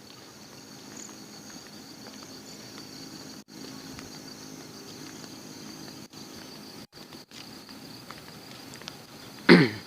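Night insects, crickets, chirring steadily over a faint low hum. Near the end a loud, brief sound sweeps steeply down in pitch.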